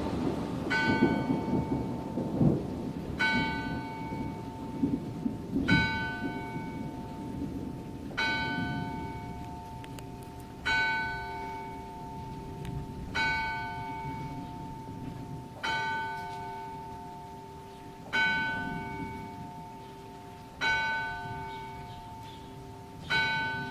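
A single clock bell, the town hall's F-sharp hour bell, striking noon. It gives ten strokes about two and a half seconds apart, each left ringing into the next. A thunder rumble dies away over the first few seconds, and rain falls steadily underneath.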